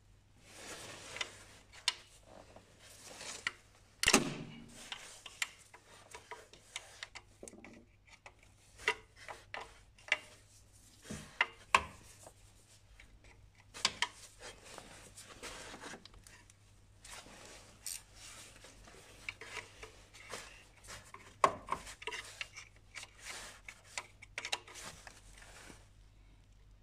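Hand tools working on metal and plastic parts in a car's engine bay: irregular clicks, taps and short scrapes as fasteners and covers are worked loose, with the sharpest knocks about four seconds in and again past twenty seconds.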